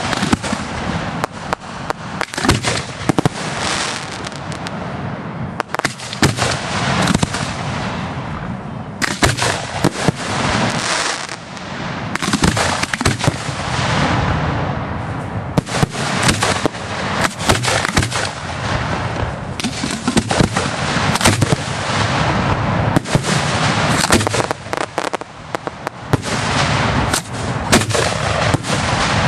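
Aerial firework shells bursting overhead in a dense, continuous barrage: many sharp bangs a second, overlapping with no pause.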